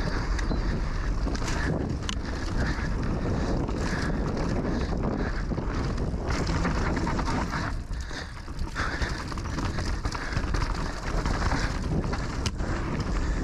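Wind rushing over an action camera's microphone and Schwalbe Magic Mary knobby tyres rolling over a dirt trail as an e-mountain bike descends at speed. Scattered rattles and knocks come from the bike over bumps, with a brief lull about eight seconds in.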